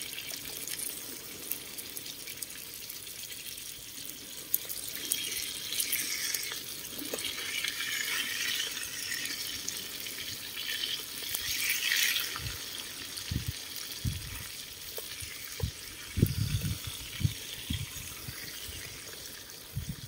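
Food sizzling in a small pot on a portable butane camping stove, the hiss swelling and easing as a spoon stirs and scrapes in it. A few dull knocks in the second half.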